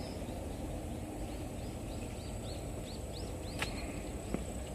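Outdoor ambience with a steady low rumble, and a bird calling a quick run of short, arched chirps, about four a second, through the middle. A faint high steady tone runs underneath, and there is a single click about three and a half seconds in.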